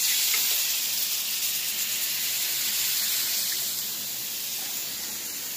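Liquid poured from a carton into a hot pan of frying chorizo, setting off a sizzling hiss that jumps up at once and then slowly dies down.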